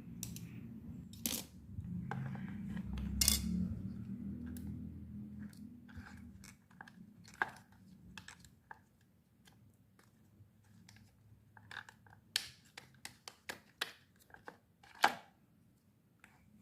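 Scattered small sharp clicks and scrapes of a thin flat-blade screwdriver prying at the plastic connector lock on a car's steering column. A low hum sits under the first six seconds and then fades.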